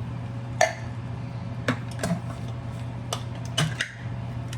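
Sharp metallic clinks and knocks of kitchen utensils and cookware, about five spread over the few seconds, over a steady low hum.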